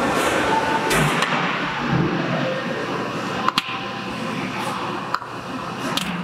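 Lightweight hammer dropped onto a piece of solid oak base moulding, giving short sharp knocks: a quick double strike about halfway through, then single strikes near the end. The knocks come over steady factory background noise.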